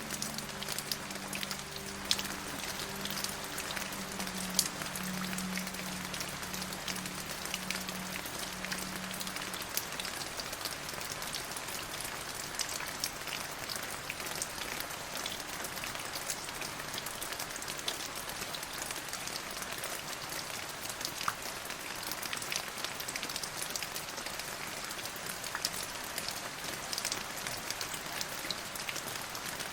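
Steady rain falling on a surface, with many individual drops ticking sharply throughout. A faint low hum underneath fades out about ten seconds in.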